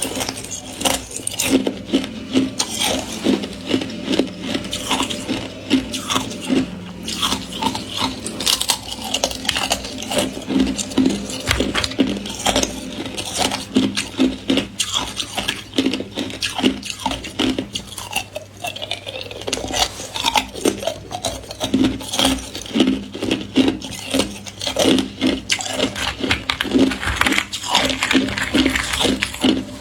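Thin ice being bitten and chewed close to the microphone: a steady run of sharp, irregular crunches.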